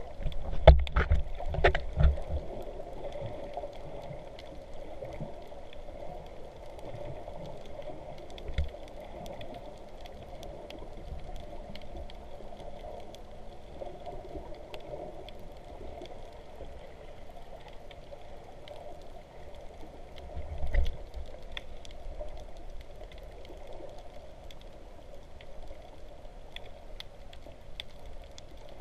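Muffled underwater sound recorded from a camera below the surface: a steady dull wash of water with scattered faint clicks. Low thumps come a few times in the first two seconds, once more a little later, and again about two-thirds of the way through.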